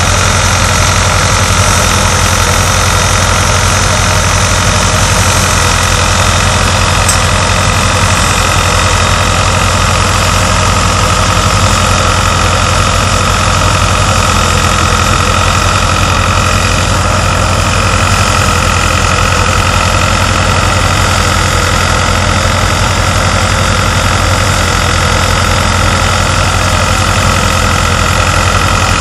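Tractor-driven thresher running steadily under load as crop is fed in: the tractor's diesel engine and the spinning threshing drum and fan make a loud, continuous drone with a steady high whine over it.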